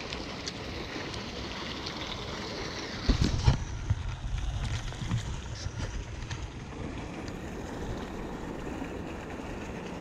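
Steady outdoor rushing noise of wind and creek water. A few sharp knocks of handling come about three seconds in, followed by a low rumble of wind on the microphone.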